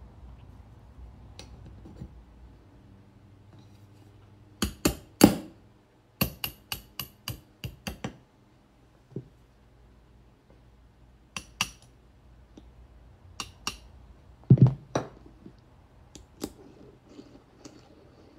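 Ball-pein hammer striking a pin punch held on steel plates: sharp metallic taps in small groups, with a quick run of lighter clinks and two heavier knocks near the end.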